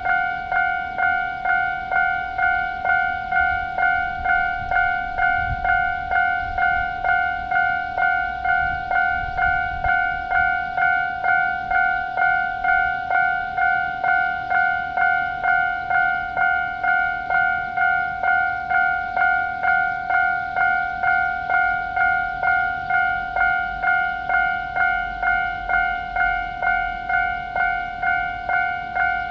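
Japanese railway level-crossing warning bell of the standard electronic type, a little high-pitched. It rings in an even, unbroken rhythm of about one and a half strikes a second, the signal that the crossing is closed for an approaching train.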